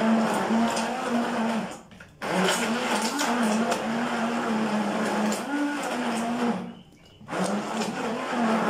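Hand-held stick blender running in a bowl, puréeing boiled carrots and apricots; its motor hum wavers in pitch as it works through the chunks. It stops briefly and starts again twice, about two seconds in and near seven seconds.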